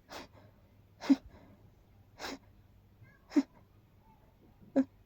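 A person stifling a quick series of sneezes: five short, breathy bursts about a second apart, three of them sharp.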